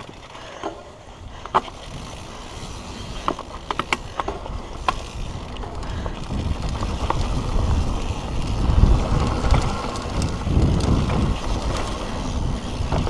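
Mountain bike riding down a dirt singletrack: tyres rolling over dirt and stones, with sharp clicks and rattles from the bike. Wind rumble on the camera microphone builds from about halfway as the bike picks up speed.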